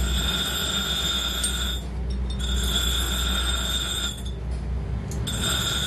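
Metal lathe running with a steady low hum, over it a high-pitched whine that cuts out twice and comes back.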